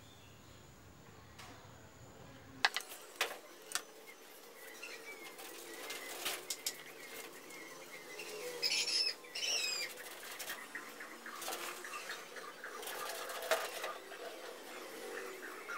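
Birds chirping in short high calls, strongest about nine seconds in. Light handling noise of a wooden stick and pencil rubbing on pallet-wood boards runs underneath, with three sharp clicks around three seconds in.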